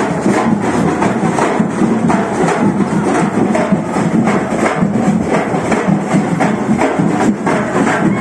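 Live percussion music with drums and wood-block-like strikes keeping a steady, fast beat, several strikes a second, loud.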